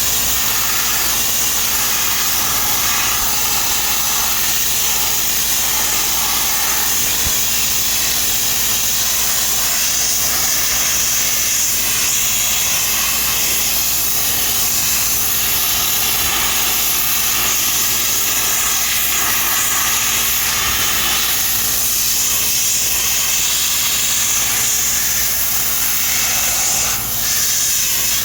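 DB800 sandblaster blasting dry abrasive at rusted metal: a loud, steady jet hiss over a low steady hum, easing briefly once near the end.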